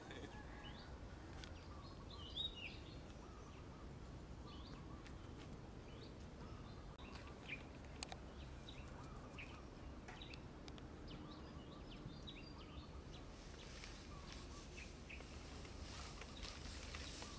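Faint background of scattered small-bird chirps over a low steady rumble, with a sharper chirp about two seconds in and a single click about eight seconds in.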